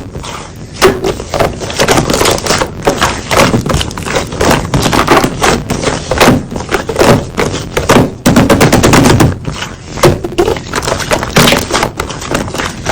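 Slime being squeezed and poked by hand, giving a dense, uneven run of loud crackling pops and clicks as air pockets burst.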